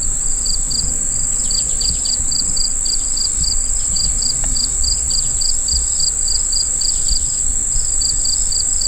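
Summer insects calling: a steady high-pitched buzz with a pulsing chirp about three times a second just below it, over a low rumble on the microphone.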